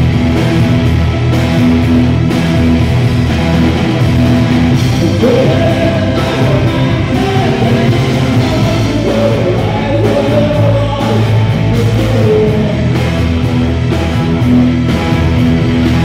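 Rock band playing live through the PA: drums, bass guitar and keyboards in a steady groove, with a man singing for several seconds in the middle.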